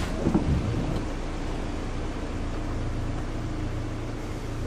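Steady low rumble and hiss of wind and rough surf, heard from inside a vehicle, with a faint steady hum coming in about halfway through.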